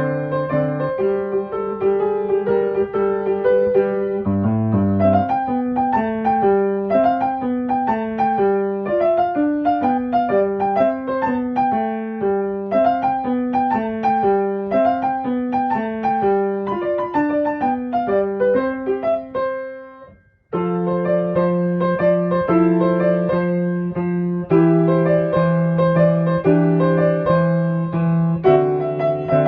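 Background piano music, a melody over held bass notes. About two-thirds of the way through it fades out, breaks off for a moment, and starts again.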